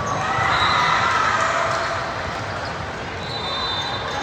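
Gym crowd noise during a volleyball match: many voices overlapping, loudest about a second in, with a few short high-pitched tones near the end.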